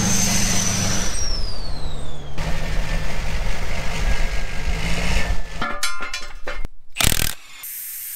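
2008 Chevy Kodiak 4500's 6.6 L Duramax V8 turbo-diesel running as the truck drives by, with a high turbo whine that falls in pitch about a second in. The engine sound cuts off about five and a half seconds in, followed by a few sharp clicks and a burst of hiss.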